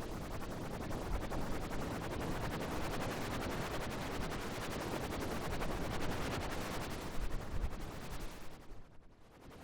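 Synthetic sound effect: a dense crackling noise made of rapid clicks running together, steady, then sinking almost to quiet near the end before rising again.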